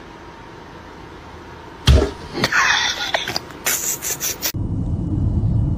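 A sudden loud smack about two seconds in, followed by a couple of seconds of short, sharp, noisy bursts. About four and a half seconds in, these give way abruptly to a steady low rumble of street noise.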